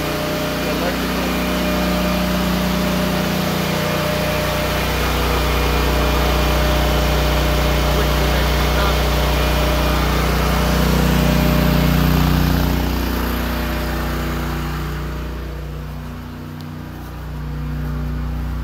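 Honda-powered PWHG 6901 portable generator engine running steadily on natural gas while carrying the load of a whole house. It gets quieter near the end.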